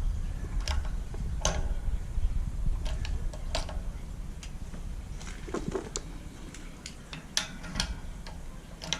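A 6-ton hydraulic shop press being pumped to push a new ball bearing into a pulley. Irregular light metallic clicks and ticks sound over a low rumble that fades away.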